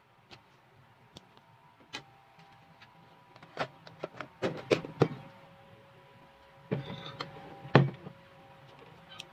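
Clicks and knocks of kitchenware being handled: a plastic tub and its lid rattle and snap in a quick cluster about four to five seconds in, then two heavier knocks come near the end as the glass air-fryer bowl is handled. A faint steady hum runs underneath.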